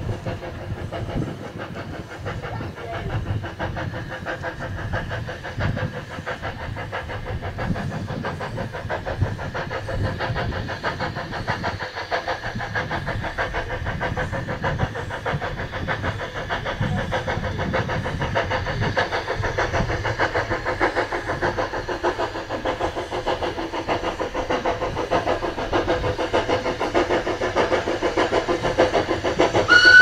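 Andrew Barclay steam saddle tank locomotive chuffing as it works a train towards the listener, a rapid, even beat of exhaust that grows gradually louder as it approaches.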